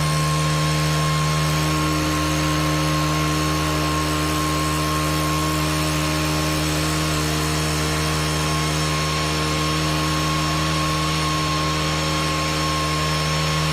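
Stihl KM 131R KombiMotor's small engine driving its leaf-blower attachment, held at high revs with a steady, even pitch.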